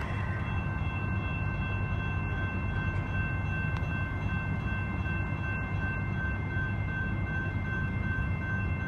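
Double-stack intermodal well cars of a freight train rolling past: a steady low rumble of steel wheels on rail, with a thin, steady high-pitched ringing over it.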